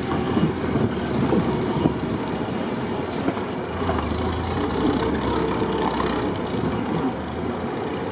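Willys Jeep driving on a forest dirt track, heard from inside its open cab: the engine runs steadily under a constant rattling and clattering of the body and running gear over the rough ground.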